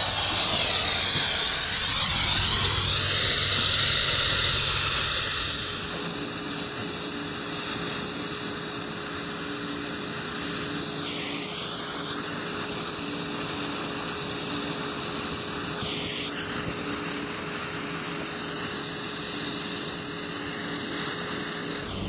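Air-acetylene brazing torch burning with a steady hissing roar while a copper refrigerant line joint is brazed. The hiss turns brighter about five seconds in, and its tone shifts briefly a couple of times as the flame is moved along the joint.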